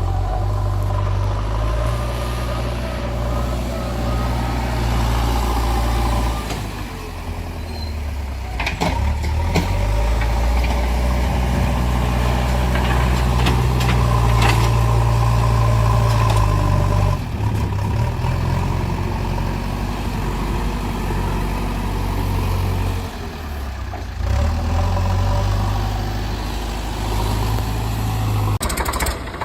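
A heavy vehicle's engine running steadily with a deep drone. Its note shifts abruptly several times, about 7, 9, 17 and 24 seconds in.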